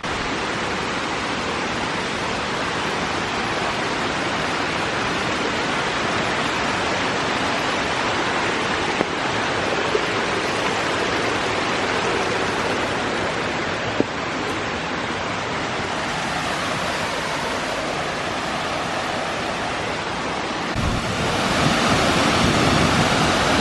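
Steady rushing of a forest river's cascading water, growing louder and fuller about twenty-one seconds in.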